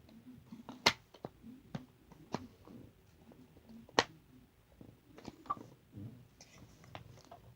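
Small plastic containers, cups and a cork being handled: light clicks and knocks, with three sharper clicks about a second and a half apart and faint handling noise between.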